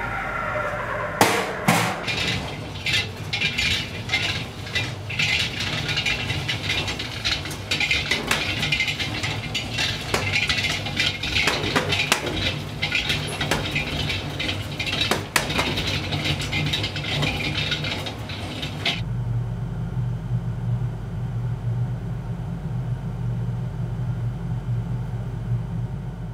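Cremated-remains pulverizer running: large ball bearings tumbling in its turning drum make a dense, irregular clinking and rattling over a low motor hum as they grind bone fragments to granular remains. About three-quarters of the way through the rattling stops, leaving only a steady low hum.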